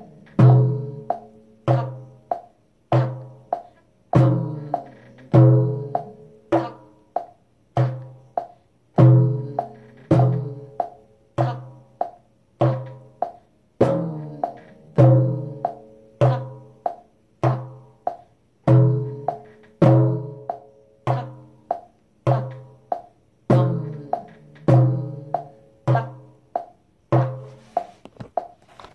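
Hand-played frame drum: a steady repeating rhythm of deep, ringing bass strokes from the centre of the head mixed with sharper, higher rim strokes, about three strokes a second, in a dum–tak pattern.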